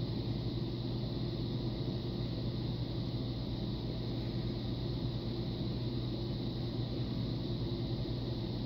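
Steady low hum with a faint hiss: background room noise, unchanging throughout.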